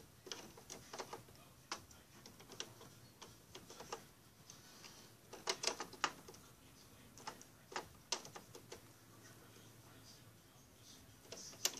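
Light, irregular plastic clicks and taps from a doll and a small plastic toy pot being handled on a toy stove, with a short flurry of clicks about halfway through.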